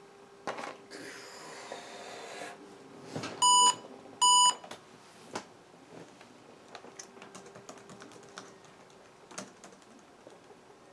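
IBM ThinkPad 600E's built-in speaker gives two short, high beeps under a second apart as the power-on self-test reports error 301, a keyboard error. Scattered faint clicks follow.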